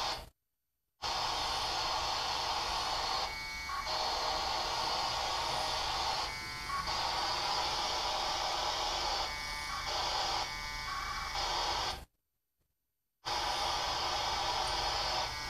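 Amateur radio transceiver receiving steady radio static, cutting out to silence twice for about a second, with a few short stretches where the hiss thins and a tone comes through.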